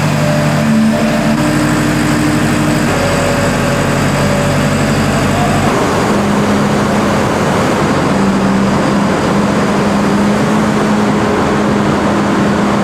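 Case IH Magnum 340 tractor's diesel engine running as the tractor drives in, its engine note shifting in pitch about three and again about six seconds in.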